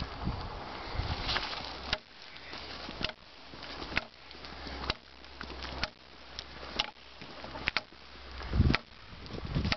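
A Busse BWM fixed-blade knife chopping into a wooden 4x4 beam: sharp knocks of the blade biting the wood, about once a second, starting about two seconds in.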